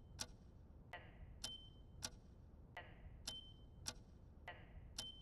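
Squid Game countdown timer sound effect: dry clock-like ticking in a repeating pattern of about three ticks every two seconds, one tick in each cycle carrying a short ringing ping.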